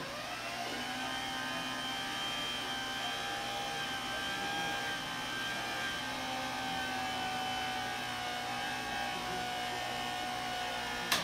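Saturn windshield wiper motor driving a large stainless steel iris shutter closed, with a steady mechanical whine that settles in pitch during the first second. The motor mount is not yet isolated from the frame, which makes it noisy. A sharp click comes near the end as the motor stops.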